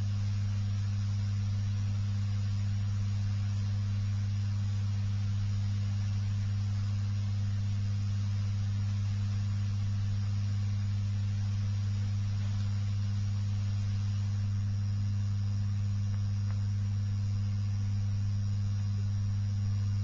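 Steady low electrical hum, unbroken and unchanging, with a faint thin high whine above it.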